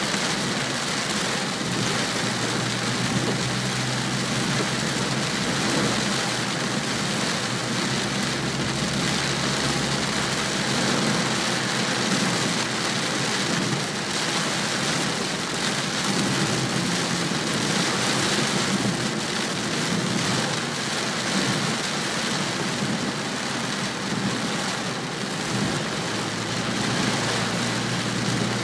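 Rain hitting the windscreen and body of a moving car, heard from inside the car as a steady hiss, with the car's low engine and road hum underneath.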